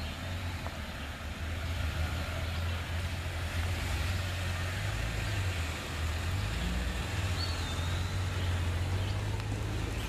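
Lifted Jeep Wrangler crawling past at low speed on a dirt trail, its engine running with a steady low rumble.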